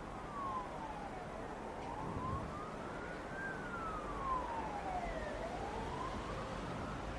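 Emergency-vehicle siren wailing, its tone falling and rising slowly about every two seconds, over steady background noise.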